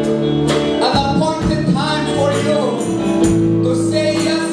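Live worship band playing a slow song with guitars and drums on a steady beat, with a tambourine jingling and some voices singing along.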